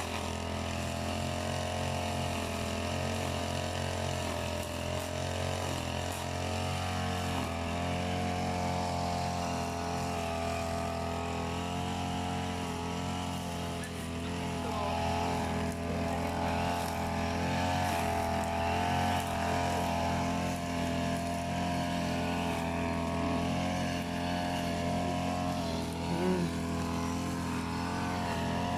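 Petrol brush cutter (grass trimmer) engine running at a steady speed, its pitch wavering slightly, a little louder from about halfway through.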